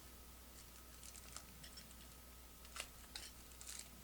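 Faint, scattered clicks and light scrapes of trading cards being handled and slid from a stack, busiest near the end.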